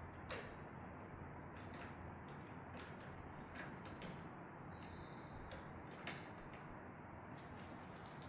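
Faint, scattered light clicks and taps over a steady background hiss, with a brief faint high whine about four seconds in.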